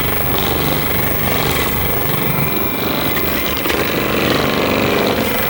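Percussion massage gun running steadily against the body, a rapid hammering buzz over its motor hum.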